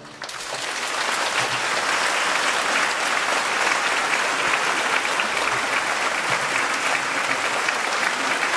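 A large audience applauding, breaking out suddenly as the last chord of a choir-and-orchestra piece dies away and then holding steady.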